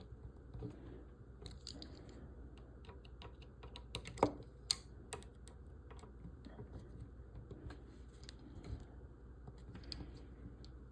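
Small screwdriver tightening screws in a model kit's framework: scattered light clicks and taps, with a couple of sharper ticks a little after four seconds in.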